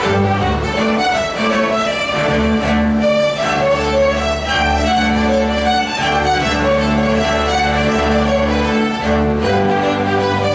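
String orchestra of violins, cellos and double basses playing a hornpipe, with sustained low bass notes under the melody.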